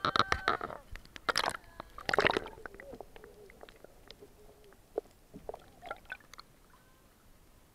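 Seawater splashing and sloshing over an action camera as it is dipped below the surface, in three loud bursts over the first two and a half seconds. Then muffled underwater sound with scattered faint clicks and crackles.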